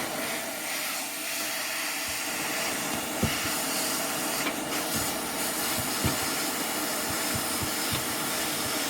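ATTEN ST-862D hot air rework station blowing a steady hiss of hot air from its brushless fan, with a few light clicks scattered through, typical of pliers working a component on a circuit board.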